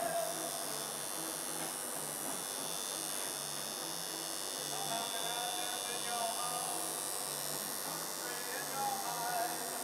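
Coil tattoo machine buzzing as the needle works ink into skin.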